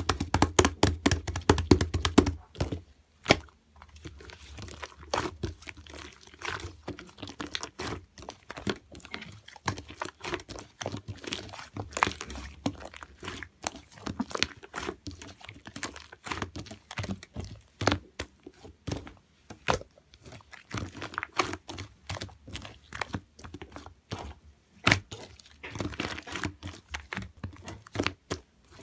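A dense, irregular run of close sharp clicks, crackles and light knocks, like something being handled, crinkled or tapped, busiest in the first couple of seconds.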